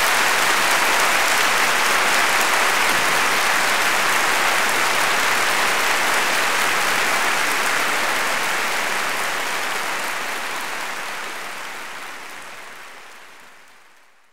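Audience applauding, steady and dense, then fading out over the last few seconds.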